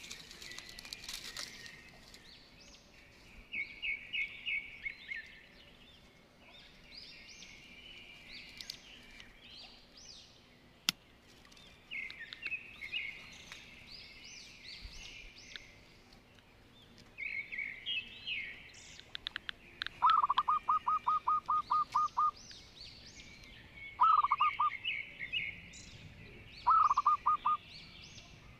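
Wild birds calling: many short, repeated chirps throughout, and from about twenty seconds in, three louder rapid runs of clear, evenly spaced notes, the first lasting about two seconds. A single sharp click comes about eleven seconds in.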